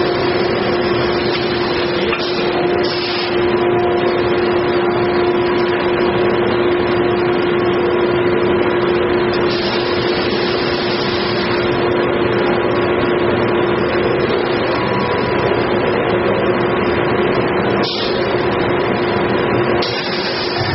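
Automatic pulp-moulding machine for bottle trays and cup holders running: a loud, steady mechanical noise with a constant hum running through it.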